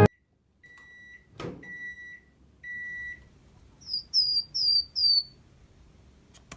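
Microwave oven beeping three times, signalling the end of its cycle, with a knock between the first and second beep. Then a chick peeps four times, each peep falling in pitch.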